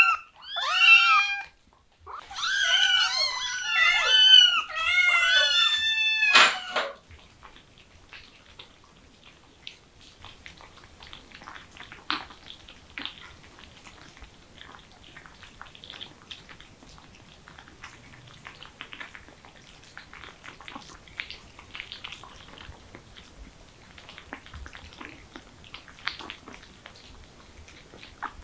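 Kittens meowing: a quick string of high, rising-and-falling meows in the first seven seconds or so. After that come soft scattered clicks and lapping as kittens eat from small bowls.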